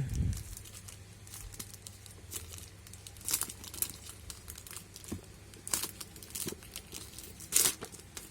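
Plastic and cardboard packaging being handled and unwrapped, crinkling and crackling in short irregular bursts, with a few louder rustles.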